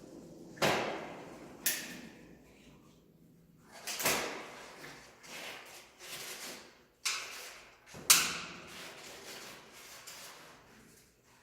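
Tyre levers prying a bicycle tyre's bead off the wheel rim: a handful of sharp snaps and clacks, the loudest about eight seconds in, with scraping between them.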